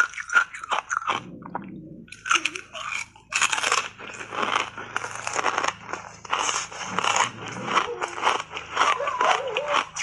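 Ice coated in matcha powder being bitten and chewed close to a clip-on microphone: quick, irregular crunching. There is a short lull about a second in, then steady crunching.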